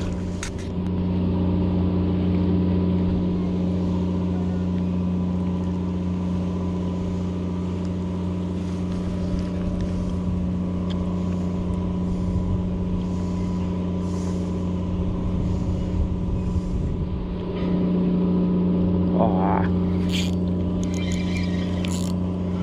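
An engine running steadily at one constant pitch, a little louder about a second in and again near the end.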